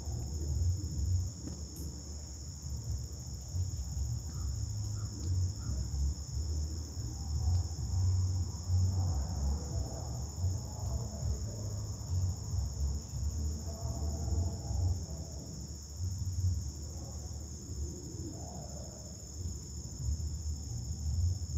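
Steady, high-pitched drone of an insect chorus over an uneven low rumble.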